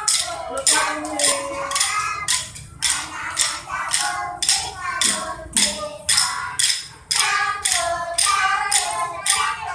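Children's drum band rehearsing: small snare drums struck together in a steady beat of about three strokes a second, with children's voices singing a wavering melody over the drumming.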